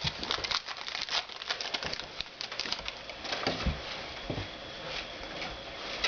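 Trading-card packs and cards being handled: crinkling and crackling of foil wrappers with quick clicks, busiest in the first half, and a couple of soft low thumps a little past the middle.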